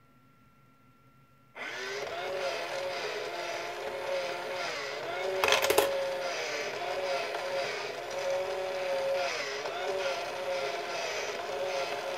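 Face Bank coin bank's small electric motor and gears whirring as the face chews and swallows a coin, starting suddenly about a second and a half in, its pitch wavering up and down in a repeating cycle. A short burst of clicks about five and a half seconds in.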